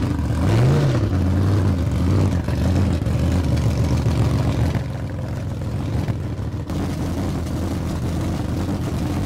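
Car engine revving once near the start, then running with a deep, steady rumble.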